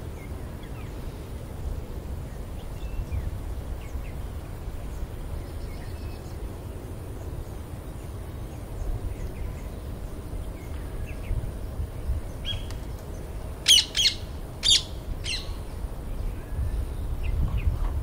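Green parakeets calling: faint scattered chirps, then about three quarters of the way in a quick burst of four or five loud, shrill calls, over a low background rumble.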